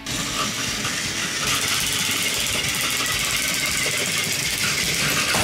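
Two battery-powered Plarail toy trains running head to head on plastic track: small electric motors and gearboxes whirring with a steady rattle as the trains push against each other. The rattle grows louder about a second and a half in.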